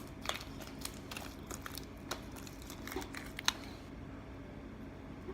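Sticky homemade slime being handled and pulled, giving irregular small clicks and crackles.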